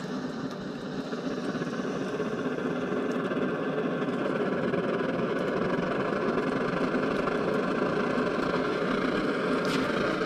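Liquid-fuel camping stove burner coming up to full burn: a steady rushing noise that starts suddenly and builds over the first couple of seconds, then holds. The stove has been primed and is now burning vaporised fuel.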